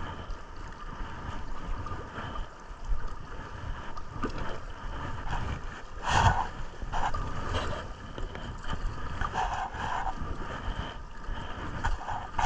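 River water running and lapping around a floating kayak, with wind rumbling on the GoPro microphone and a brief louder burst about six seconds in.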